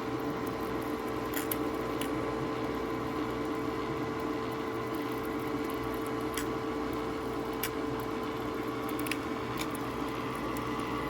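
Countertop nugget ice maker running with a steady hum, making ice, with a few faint, scattered clicks.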